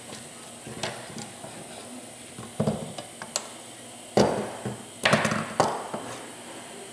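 Metal parts of a 4R55E automatic transmission being handled and fitted, as the band pawl is set into the case: scattered clicks and clunks, with heavier knocks about two and a half, four and five seconds in.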